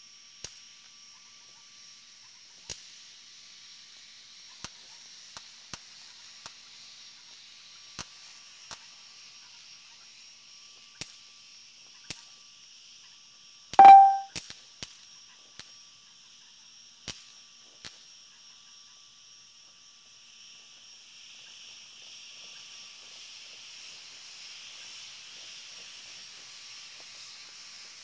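Distant New Year's fireworks popping every second or two over a steady high-pitched night chorus. About halfway through comes one much louder, nearer bang with a brief ringing tone, followed quickly by a few smaller crackling pops.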